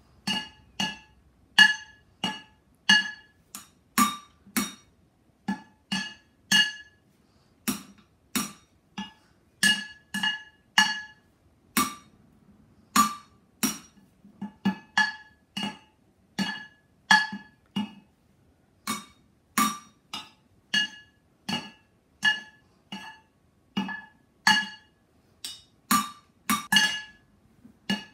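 Wooden drumsticks beating on two upturned metal cooking pots in an uneven drum pattern, about one to two hits a second. Each hit rings briefly at a few clear pitches.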